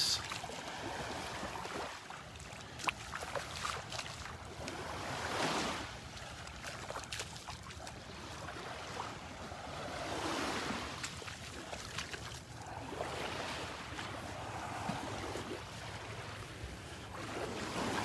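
Small waves on a calm sea lapping and washing up onto a sandy beach. The wash swells and fades several times.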